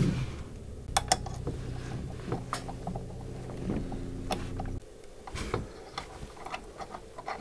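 Hex key turning screws that hold a metal top plate to a camera body, making scattered light metal clicks and small scrapes as the screws go into freshly installed helical thread inserts. A low steady hum runs underneath and stops about two-thirds of the way through.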